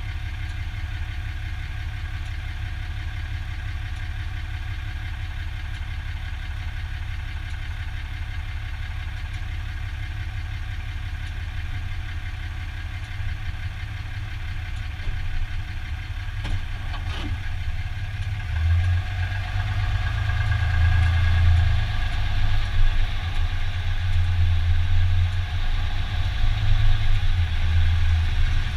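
2015 Dodge Ram 2500 pickup's engine idling steadily, then getting louder and more uneven past the halfway point. Two sharp knocks come a little over halfway through. After them the low rumble pulses as the truck is manoeuvred to park, the moment the owner hears a drivetrain noise.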